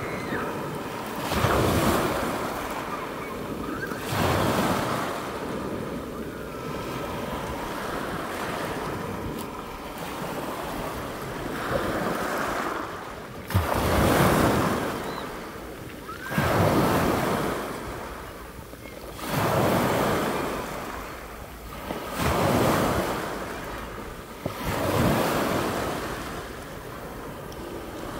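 Sea waves washing onto a pebble beach, swelling and falling back every few seconds, with wind buffeting the microphone.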